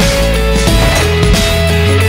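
Background rock music with electric guitar, steady and loud.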